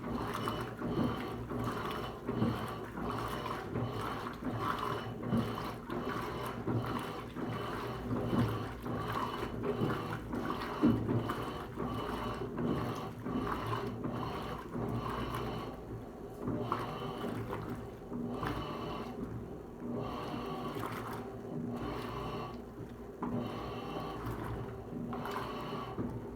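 Electrolux Turbo LTC15 washing machine running a wash cycle: a steady motor hum with water sloshing and churning around the clothes in uneven surges.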